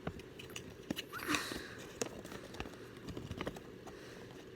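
Light handling noises of toy packaging: scattered small taps and clicks, with a brief rustle of paper or plastic about a second in.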